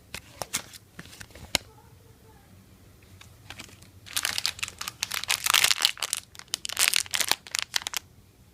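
Crinkly wrapper of a surprise egg being handled and unwrapped by hand: a few sharp clicks, then a dense burst of crinkling and crackling from about four seconds in that stops shortly before the end.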